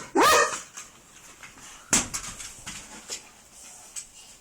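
A sharp knock about two seconds in, followed by faint taps and scuffs, as a dog goes at a smoke detector lying on the floor.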